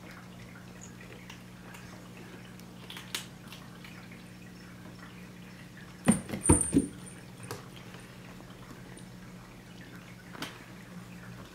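Black kitten grooming itself, its licking making faint wet ticks and smacks, over a low steady hum. A short run of louder sharp taps comes about six seconds in.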